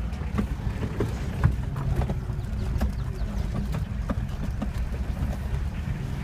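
Vehicle driving over a rough road: a steady low rumble of engine and road, with frequent knocks and rattles as it jolts.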